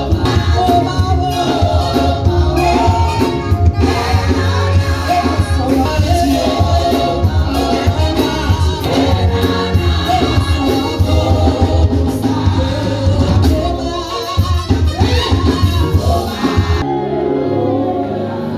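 Gospel music: singing over a band with a heavy pulsing bass. About seventeen seconds in it changes abruptly to a softer, duller passage.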